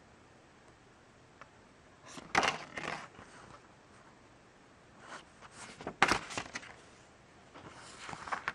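Paper rustling and crinkling as a folded printed leaflet is handled and unfolded, in three bouts: about two seconds in, around five to six seconds, and near the end.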